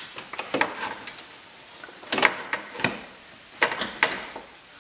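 Irregular knocks and scrapes as a transmission oil cooler is handled and worked loose from its bracket in front of the radiator. The loudest knocks come a little after two seconds and again around three and a half to four seconds in.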